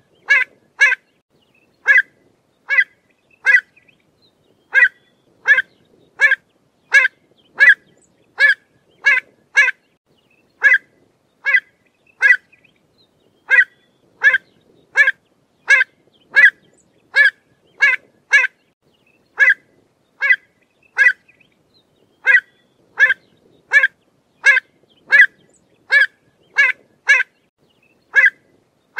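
Pied avocet calling: short, high, clear call notes repeated about one to two times a second, with a few brief pauses.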